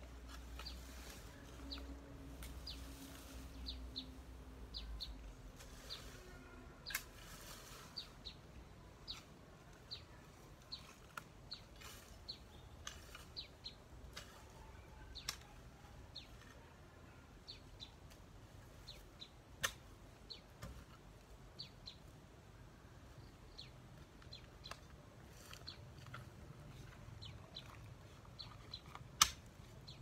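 Small birds chirping, short high chirps repeated every second or so, with a few sharp clicks and scraping noises as a long-handled garden tool works through dry cut brush. A low hum fades out after about five seconds.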